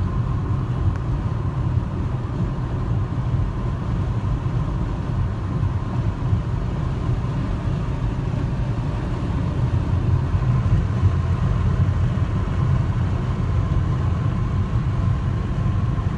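Road noise inside a car cruising at highway speed: a steady low rumble of tyres and engine, with a faint steady high hum.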